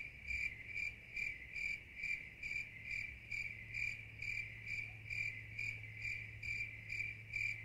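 Crickets chirping: a steady high trill that pulses evenly a little over twice a second, over a low steady hum.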